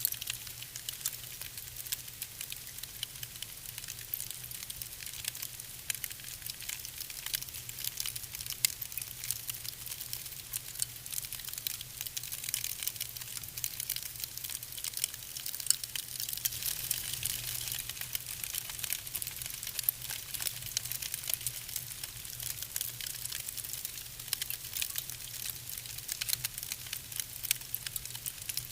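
Wood fire burning in a fireplace, with a steady hiss and frequent quick crackles and pops throughout.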